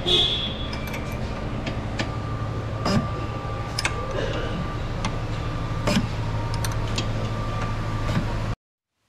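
Repair-bay background: a steady hum with scattered, irregular sharp clicks and knocks from work on the car, which cuts off suddenly near the end.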